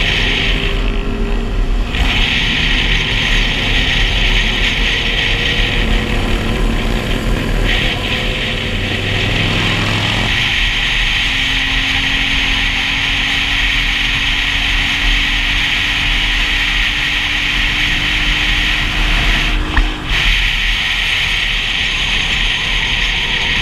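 Motorcycle riding at road speed, heard from on board: the engine running under a steady rush of wind on the microphone. About ten seconds in the engine note changes, then holds one steady tone until a brief dip near twenty seconds.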